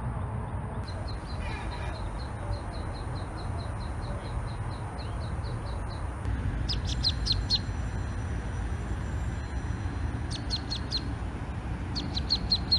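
Ducklings peeping: a quick, even run of high peeps, about four a second, then louder, sharper peeps in short runs of four or five. A steady low rumble lies underneath.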